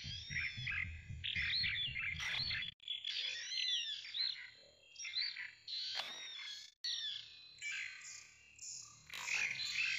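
Small songbirds chirping and twittering, with rapid repeated high notes and short warbles, broken by two abrupt cuts about three and seven seconds in.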